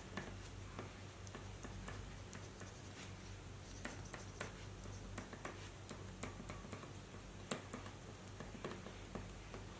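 Oil pastel crayon drawn in quick short strokes across paper, giving light, irregular ticks and scratches several times a second, over a low steady electrical hum.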